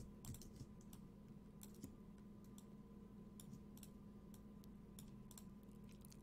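Near silence with faint, irregular clicks of a computer mouse and keyboard over a low steady hum.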